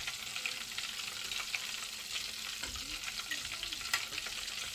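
Calamari rings deep-frying in hot oil: a steady sizzle with constant fine crackling, and one sharper click about four seconds in.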